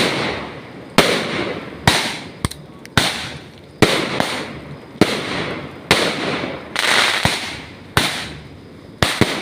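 Fireworks going off in quick succession: a sharp bang roughly once a second, each followed by a noisy crackle that fades.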